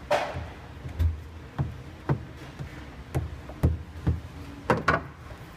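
Rubber mallet tapping sound-deadening mat down onto a car's steel floor pan: about ten dull knocks at an uneven pace of roughly two a second.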